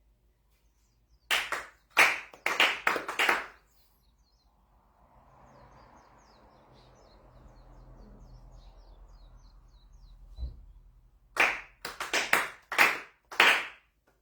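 Hand claps of Konkokyo prayer: two quick runs of about four claps each, several seconds apart. Four claps stand for shiawase, happiness. Between the runs there is a soft rustling and faint chirping.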